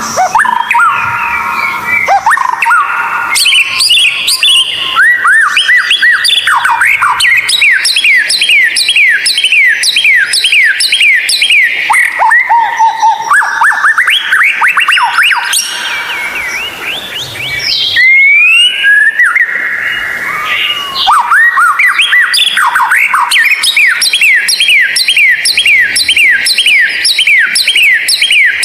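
White-rumped shama (murai batu) singing: long fast runs of repeated sharp, sweeping whistled notes, with a short break about halfway through before a new run begins.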